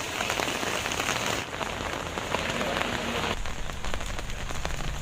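Heavy rain pouring down, a dense patter of drops on surfaces. The sound changes abruptly about a second and a half in and again past three seconds.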